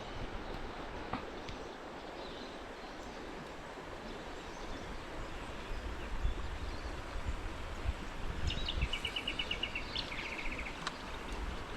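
Outdoor ambience: an even hiss with wind buffeting the microphone in low gusts. About three-quarters of the way through, a small bird gives two short trills of rapid high notes.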